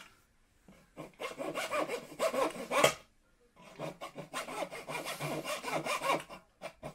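Small handsaw cutting through a thin wooden stick in quick back-and-forth strokes. The sawing starts about a second in and stops briefly about halfway through before going on.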